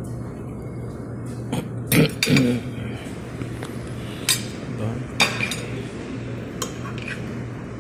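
Metal knife and fork clinking and scraping on a ceramic plate while cutting an omelette: a handful of sharp clinks, the loudest two about two seconds in, over a steady low hum.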